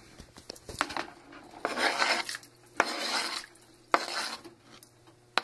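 A knife blade scraping raw chicken pieces off a cutting board into a pot of broth, in two scraping strokes near the middle, with a few sharp knocks of the knife on the board or pot.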